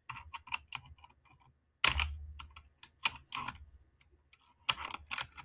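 Short bursts of plastic clicking from a Royal Kludge RK61 mechanical keyboard with blue switches, in four clusters about a second apart.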